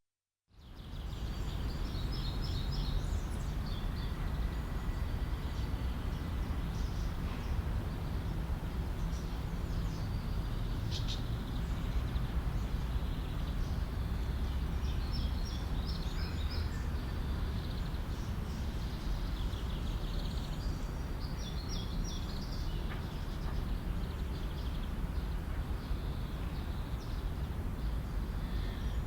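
Park ambience: a steady low rumble of background noise, likely distant traffic, under scattered bird chirps and short songs that come and go every few seconds.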